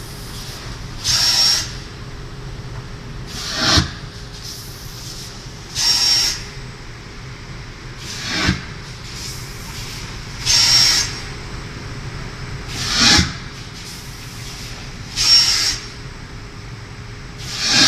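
Paper pulp egg tray moulding machine running, with a short hiss of air about every two and a half seconds as the moulds cycle, over a steady machine hum. Every other hiss has a high whistling edge.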